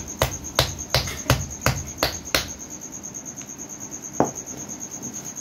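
Knife chopping into a whole elephant foot yam: about seven sharp chops at roughly three a second, then a pause and one more chop about four seconds in.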